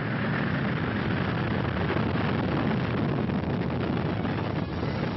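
Vanguard rocket lifting off, its liquid-fuelled first-stage engine firing with a steady, deep rushing noise.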